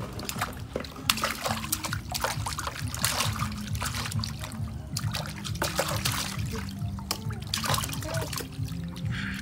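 Bathwater splashing and sloshing in a plastic basin as a baby slaps it with both hands, in many quick irregular splashes, over background music.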